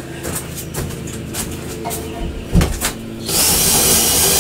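A few handling knocks and clicks, then about three seconds in a cordless drill starts and runs steadily, boring a half-inch spade bit into the cabin's wooden wall.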